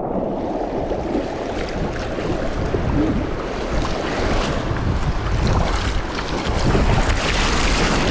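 River whitewater rushing and splashing around a composite sea kayak's bow as it paddles through big waves, with water spattering the camera and wind buffeting the microphone.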